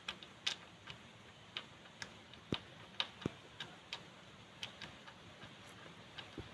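Light, irregular clicks and taps of a spark plug wrench being worked on the spark plug of a Yamaha Jupiter MX engine, about a dozen scattered ticks.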